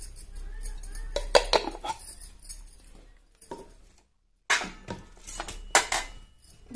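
A spoon clinking against a ceramic dish as salt is spooned into spiced yogurt, mixed with the chink of glass bangles on the moving wrist. The sound is a scatter of short, sharp clinks, broken by a brief dead gap about four seconds in.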